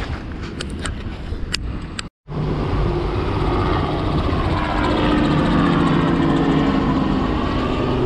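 Wind noise on the microphone with a few sharp clicks. After a cut about two seconds in, a helicopter flies over: a loud, steady engine-and-rotor drone whose pitch slowly dips and rises as it passes.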